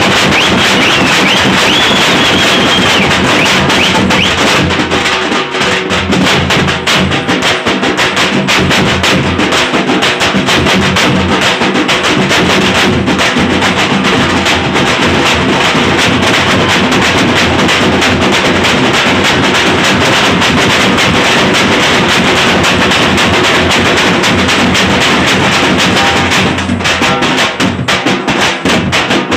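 A group of dappu frame drums beaten with sticks in a fast, dense, loud rhythm. A high wavering tone sounds over the first few seconds.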